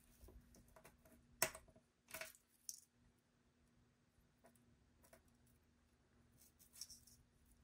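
Faint, short clicks and taps of small metal jewelry pliers and a jump ring being worked on a necklace chain: a sharper click about a second and a half in, two more shortly after, and a couple of light ones near the end.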